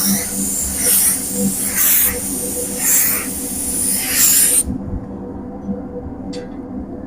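Paint spray gun hissing, the hiss swelling about once a second, then cutting off sharply about two-thirds of the way through. A steady low hum runs underneath.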